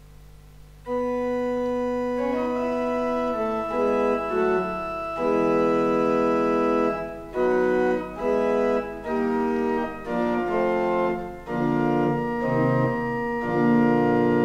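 Sampled pipe organ played through GrandOrgue virtual pipe organ software, sounding a slow series of held chords tuned in meantone temperament. It starts about a second in, with short breaks between some of the chords.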